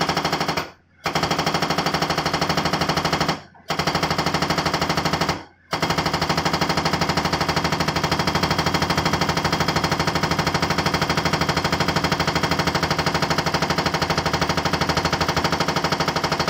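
Excavator-mounted hydraulic rock breaker hammering its chisel into rock: a loud, rapid, even rattle of blows. It stops briefly three times, about one, three and a half and five and a half seconds in, then runs unbroken.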